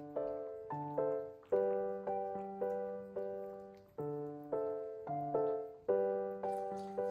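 Background music: a light piano-like keyboard melody of struck notes that ring and fade, over held low notes.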